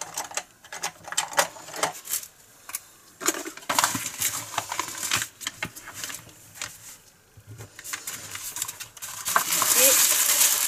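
Small plastic bags of diamond-painting drills being handled: the plastic rustles and crinkles while the tiny resin drills inside click and rattle in irregular bursts. From about nine seconds in, the crinkling becomes denser and louder as several bags are moved at once.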